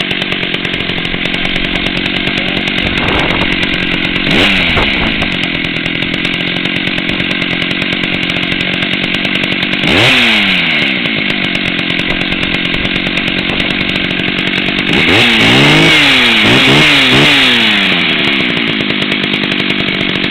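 Stihl 031 AV two-stroke chainsaw engine idling steadily, revved up and back down about four seconds in and again at about ten seconds, then blipped several times in quick succession near the end. The idle is a little fast.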